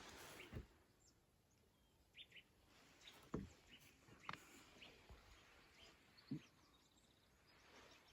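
Near silence with faint, scattered bird chirps and a short trill near the end, broken by a few soft knocks.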